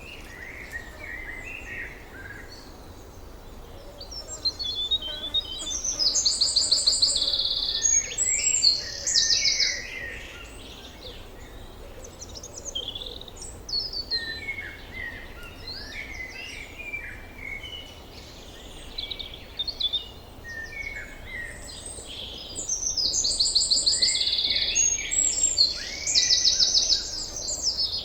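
Several wild birds singing and chirping. One bird's loud song of fast repeated notes comes twice, a few seconds in and again near the end, over softer calls from other birds.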